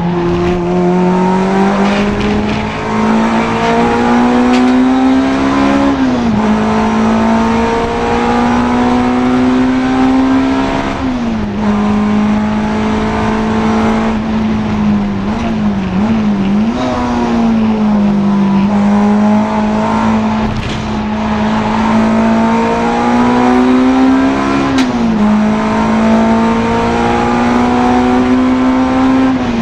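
Honda Integra DC2 race car engine running hard around a circuit. Its note climbs steadily through each gear and drops sharply at the shifts, four times, with a brief wavering dip about halfway through.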